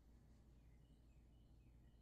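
Near silence: room tone with a low steady hum and a few very faint, short high chirps.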